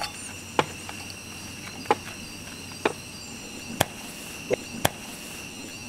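A spoon tapping and scraping against a bowl while serving cooked rice: sharp short clicks about once a second, over a faint steady high-pitched hum.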